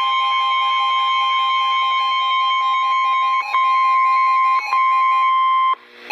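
NOAA Weather Radio's 1050 Hz warning alarm tone sounding steadily through a weather radio's speaker, with a faster beeping pattern layered over it. It has two brief dropouts midway and cuts off suddenly near the end. The tone signals that a warning message follows.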